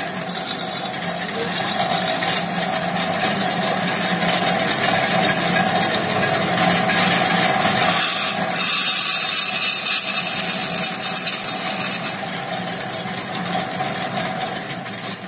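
Wood lathe running with a hand-held turning tool cutting into a spinning wooden blank: a steady scraping hiss of the cut over the hum of the machine. The cutting grows brighter and louder from about eight seconds in, then eases after about twelve seconds.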